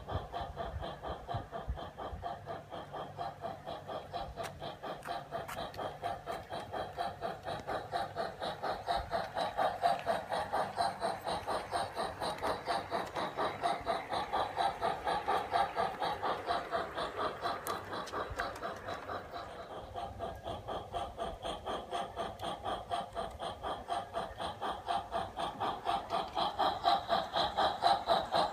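Steady steam-locomotive chuffing from the Uhlenbrock digital sound decoder of a G-scale model Welsh Highland Railway Garratt as it runs. The chuffs come in a rapid, even beat.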